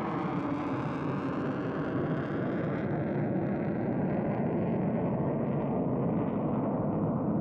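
Sukhoi Su-24MR's twin AL-21F-3 turbojets in afterburner: a loud, rough jet roar as the aircraft flies away, growing duller as the high end fades with distance.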